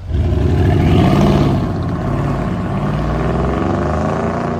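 Mercedes-AMG ML63's twin-turbo V8 accelerating as the SUV is driven off. The engine note climbs through about the first second and a half, then holds a steadier, strong pull.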